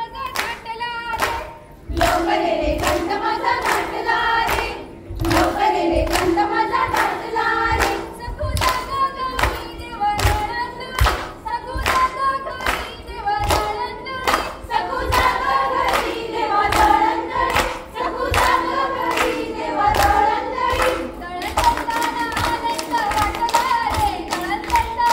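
A group of women singing a Konkani fugdi folk song in chorus, keeping time with steady rhythmic hand claps.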